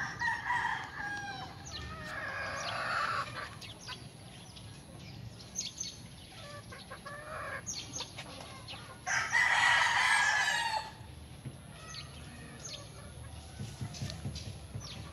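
Chickens: a rooster crowing, its loudest and longest crow about two-thirds of the way through, lasting nearly two seconds, with shorter calls near the start. Faint short chirps between.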